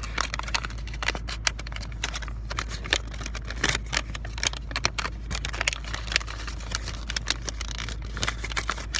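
Origami paper being handled, folded and creased by hand close to the microphone: irregular crinkles and small taps, over a steady low hum.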